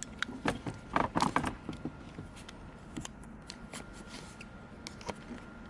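Small clicks, taps and scraping of hands and tools working on car shifter parts, busiest about a second in, with a faint steady high tone underneath.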